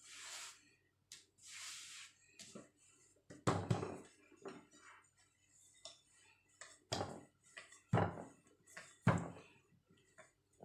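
Hands and a rolling pin working puff pastry dough on a floured tabletop: two soft swishes of dough and flour being brushed over the surface, then several dull knocks at irregular intervals as the pin and dough hit the table.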